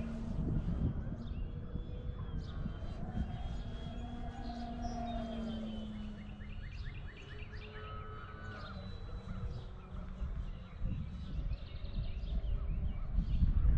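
Distant droning of the Great Planes Escapade 40's electric motor and 12x10 propeller, its pitch slowly rising and falling as the plane flies about, over wind rumble on the microphone, with birds chirping.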